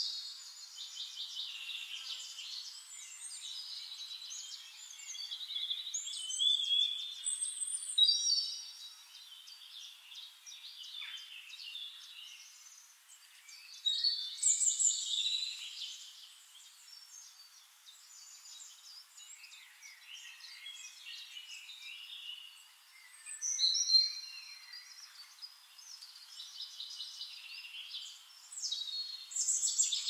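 Small birds chirping and trilling in overlapping high-pitched phrases that come in louder and quieter bouts.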